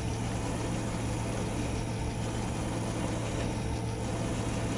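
Myford metal lathe running steadily with a constant low motor hum, drilling out an M10 bolt.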